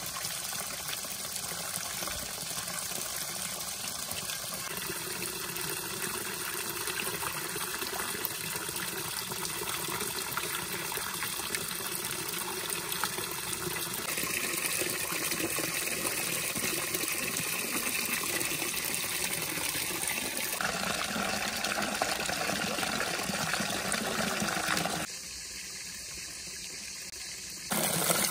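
Spring water pouring from a metal pipe spout and splashing into a shallow pool, a steady rushing splash whose tone shifts a few times and goes quieter and duller for a couple of seconds near the end.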